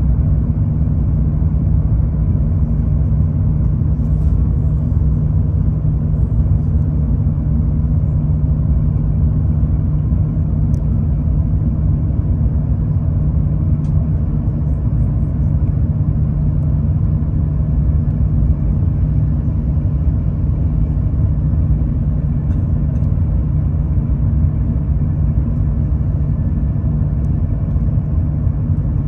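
Steady low cabin rumble inside an Airbus A380-841 descending on approach with its flaps extended.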